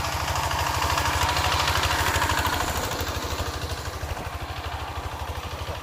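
Single-cylinder diesel engine of a two-wheel walking tractor running as it works a ploughed field: a rapid, even chugging that swells about two seconds in and then eases off a little.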